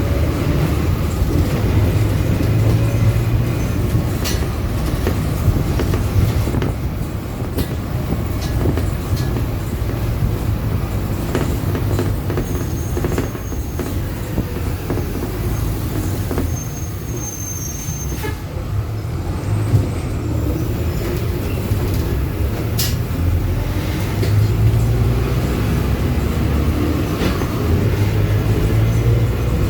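Marcopolo Sênior Midi bus on an Agrale MA 15.0 chassis on the move, heard from inside the cabin: a steady drivetrain rumble with the differential whining loudly, its pitch rising and falling with speed, most plainly near the start and the end. Scattered rattles and clicks come through.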